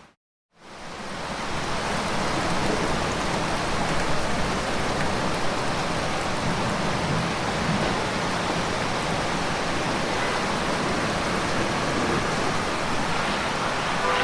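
Steady heavy rain falling, an even hiss with no distinct crackles. It cuts in after a split second of silence at the start and fades up over about a second.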